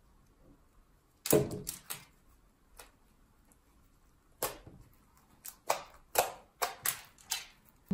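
White glue slime being folded and squeezed by hand to work in violet colouring, giving a series of sharp wet clicks and pops. They start about a second in and come more often near the end.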